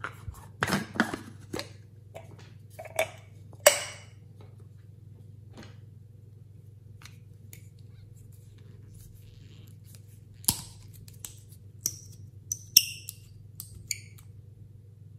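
Sharp plastic clicks and taps as a tomato-shaped plastic case is handled and opened, then a run of clicks and brief ringing clinks as the cap and metal-collared applicator of a small bottle are worked loose, over a low steady hum.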